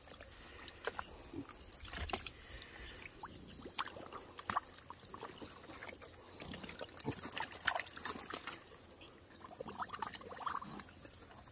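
Piglets and a shaggy calf drinking from a shallow pan of water: quiet, irregular slurps, laps and small splashes.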